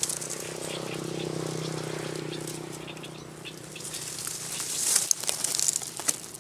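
Dwarf honeybees buzzing close to the microphone at their nest in dry grass: a steady hum that fades after about three seconds. Dry grass rustles and crackles near the end.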